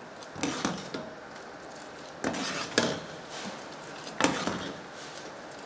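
Steel ladle scooping milky tea from a copper saucepan and pouring it back in a stream. There are three rounds about two seconds apart, each a knock of the ladle followed by a short splash, which froths and aerates the karak chai.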